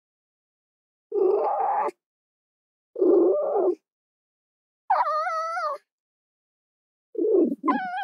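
Red fox calling four times, each call about a second long with silence between: the first two hoarse and raspy, the third a whining cry that wavers in pitch, the last a rough call that breaks into a rising cry near the end.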